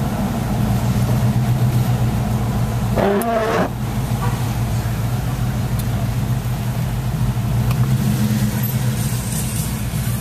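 Dodge Durango's engine running steadily at low revs while creeping in slow traffic, heard from inside the cab. A short pitched sound comes in about three seconds in.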